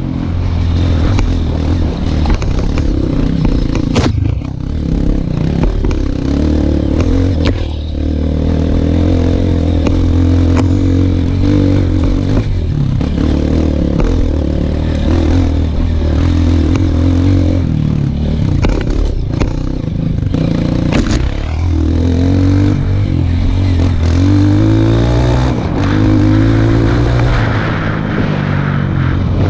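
Dirt bike engine running under load on a rough, rocky uphill trail, the revs rising and falling with the throttle. Several sharp knocks and rattles come from the bike hitting rocks and bumps.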